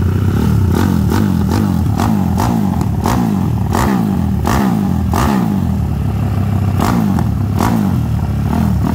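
Honda single-cylinder four-stroke motorcycle engine, bored out to 70 mm and fed by a snowmobile carburettor, being blipped again and again while it warms up: each quick stab of throttle is followed by the revs falling back, through an aftermarket silencer. The blips come about every two-thirds of a second, with one longer pause past the middle.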